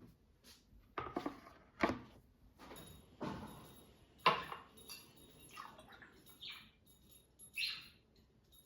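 A series of light knocks, clinks and scrapes from objects being handled, about half a dozen separate sounds with short gaps between them.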